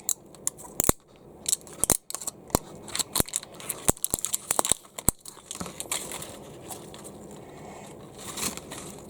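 Plastic blind bag packet being handled and torn open, with sharp crinkling and crackling for about the first five seconds, then a softer rustle.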